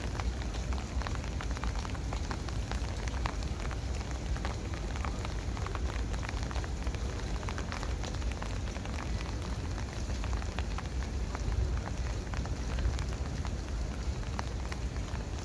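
Rain falling: many small drops pattering irregularly over a steady low rumble.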